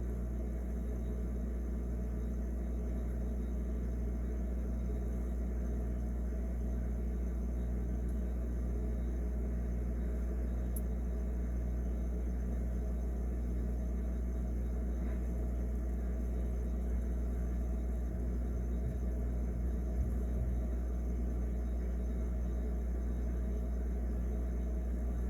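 Refrigerator running: a steady low hum with a faint pulsing throb about once a second.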